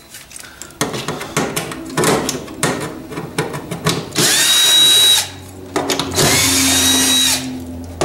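Cordless drill-driver backing screws out of a furnace's sheet-metal burner cover plate. Light clicks and knocks come first, then about four seconds in the motor runs twice, each run starting with a rising whine, the second one longer.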